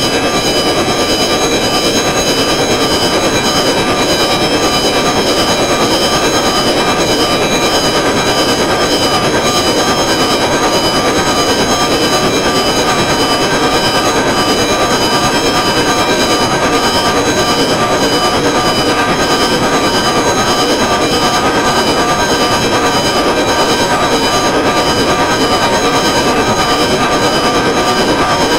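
Sequenced electronic drone music: a dense noise bed under a cluster of steady high tones that do not line up as harmonics, with no beat or pauses.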